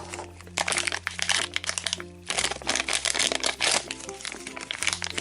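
A toy blind bag's wrapper crinkling in two spells as it is opened, over background music with steady low notes.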